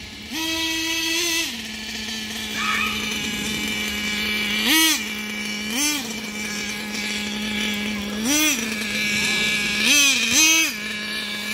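Small nitro engine of a radio-controlled off-road buggy idling with a steady buzz, blipped up in revs six times: once for about a second near the start, then in short bursts, the last two close together near the end.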